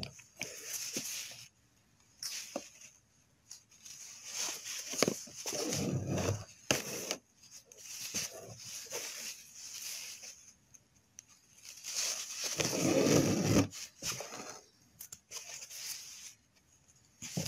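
Embroidery thread being pulled through cloth and fingers rubbing the fabric: a series of rustling scrapes that come and go, the loudest a long one about twelve seconds in.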